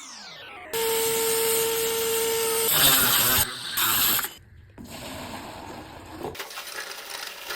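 Power tools at work on porcelain tile, in a run of short cuts: a motor spinning down at the start, then a motor running with a steady whine for about two seconds, then a few seconds of harsher grinding or cutting noise, and quieter tool work near the end.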